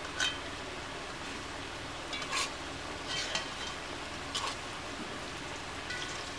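Fritters sizzling steadily in hot oil in a karahi, with a metal spatula scraping and clinking against the pan about four times.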